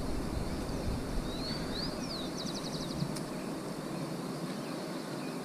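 Open-air ambience with a bird calling near the middle: a few quick rising whistles, then a fast run of about eight short high notes. A low rumble underneath stops about three seconds in.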